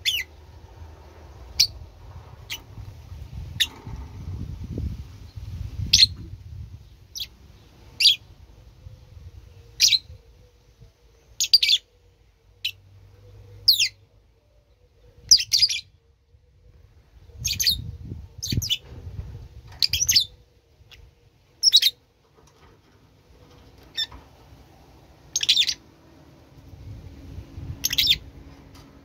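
A bird chirping: short, sharp high calls repeated every second or two, over a low rumble that comes and goes.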